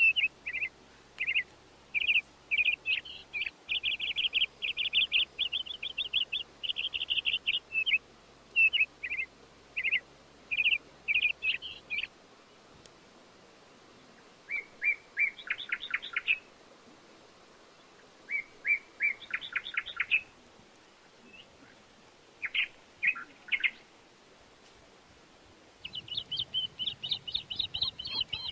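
Small birds chirping in quick runs of high notes: dense at first, then in short bursts with pauses between, thickening again near the end.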